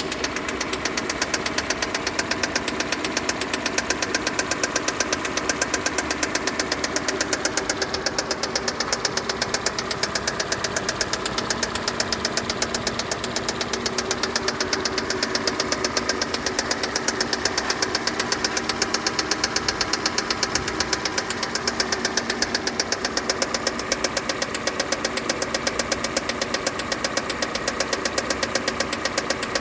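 Kia Sportage's 2.0-litre G4NA four-cylinder petrol engine running at a steady speed with a fast, regular knock from inside the engine.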